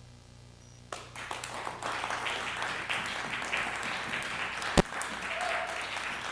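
Audience applause breaking out about a second in after near silence and continuing, over a steady low electrical hum. One sharp, loud clap stands out near the middle.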